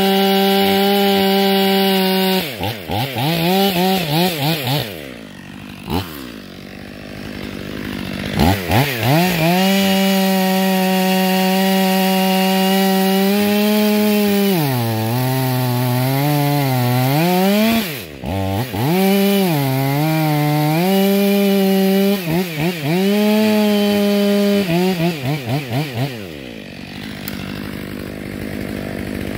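Stihl MS 500i fuel-injected chainsaw cutting through a log at full throttle. Its engine pitch drops for a few seconds midway and recovers, and between cuts the engine drops briefly to idle and is blipped back up. Near the end it settles to a steady idle.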